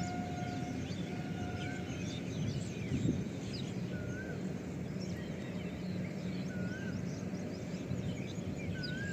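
Birds chirping, one bird repeating a short warbled note about every two and a half seconds, over a steady low rumble of background noise.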